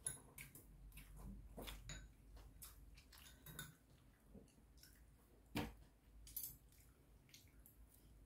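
Faint eating sounds: chopsticks and a spoon clicking against a bowl, with soft chewing between. The sharpest clicks come right at the start and about five and a half seconds in.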